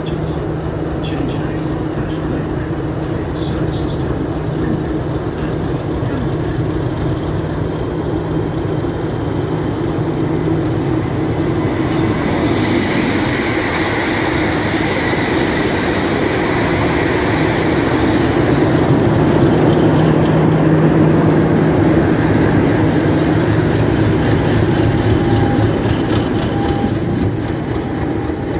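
Class 50 diesel locomotive's English Electric 16-cylinder engine running as it hauls a train slowly past, growing louder as it draws near. A high whine joins about twelve seconds in.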